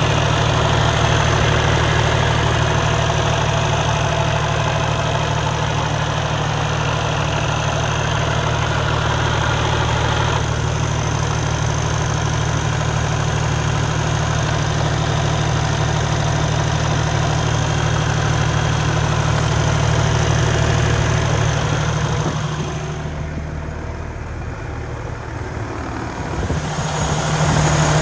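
Kenworth T680 semi-truck's red Cummins diesel engine idling steadily, heard with the hood open. The sound dips for a few seconds near the end, then comes back.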